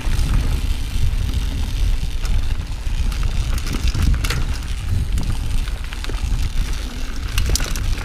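Giant Trance 27.5 full-suspension mountain bike rolling fast down a dirt singletrack: tyre noise on the trail and the bike rattling, with a few sharp clicks, most plainly about four seconds in and a pair near the end. A steady low rumble of wind on the chest-mounted camera's microphone sits under it all.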